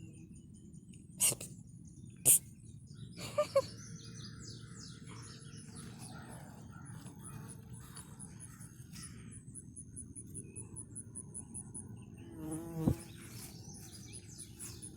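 Birds chirping over a steady, high, pulsing insect trill. There are a few sharp clicks in the first few seconds and a single pitched call near the end.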